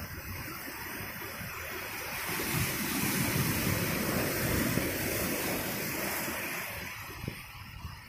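Ocean surf breaking and washing in over a rocky shoreline: a steady rush of water that swells about two seconds in and eases off near the end, with a low rumble underneath.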